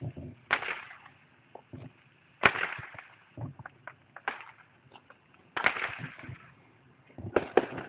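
Distant aerial fireworks going off: a string of sharp bangs, each trailing off in a rumbling echo, with fainter pops between. The loudest come about half a second, two and a half and five and a half seconds in, with a quick cluster of bangs near the end.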